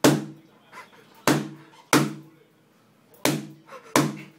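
Base of a red wine bottle, wrapped in something white, banged against a thick hardback book held to a wall: five hollow thuds, each dying away quickly, with a longer pause after the third. Each strike knocks the cork a little further out of the neck.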